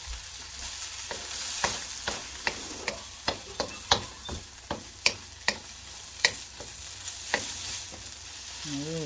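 Food frying in a pan with a steady sizzle while it is stirred, broken by irregular sharp clicks and taps.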